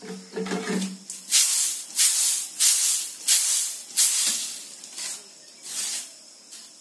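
Mustard seeds swishing and rattling across a bamboo winnowing tray as it is shaken and tilted to clean them: a run of rushing swishes about every half-second, weaker near the end.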